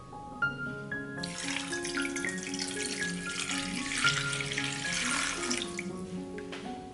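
A stream of water poured into a frying pan, starting about a second in and stopping shortly before the end, over background instrumental music.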